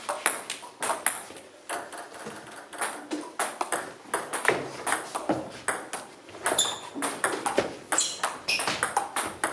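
Table tennis ball clicking repeatedly on the table and off the bats during play, sharp ticks coming irregularly, often several a second.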